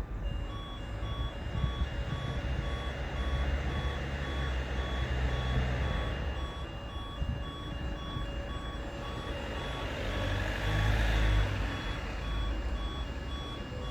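Electronic beeping, evenly repeated a couple of times a second, with a low engine rumble under it that swells near the end.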